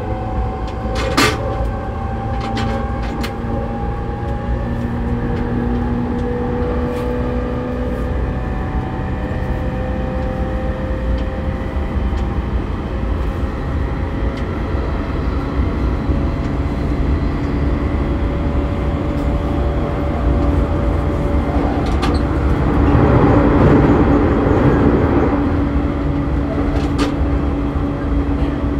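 Running sound of a JR East E231-series commuter train heard inside a motor car. The traction motors whine and rise slowly in pitch as the train accelerates from about 65 to over 90 km/h, over a steady rumble of wheels on track. A few sharp clacks come near the start, and there is a louder stretch about 23 seconds in.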